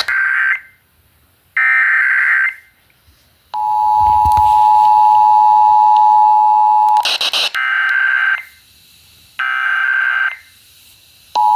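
Emergency Alert System broadcast signals received over FM radio: two short screeching SAME data-header bursts, then the two-tone EAS attention signal held for about three and a half seconds. A brief burst of noise cuts it off, two more header bursts follow, and the attention tone starts again near the end. This is the start of a Required Monthly Test.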